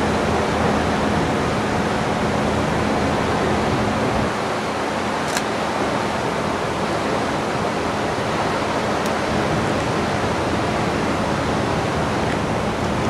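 Steady rushing noise aboard the MS Nordkapp under way, wind and water wash blended together, over a thin low steady hum from the ship. Two faint clicks sound about five and nine seconds in.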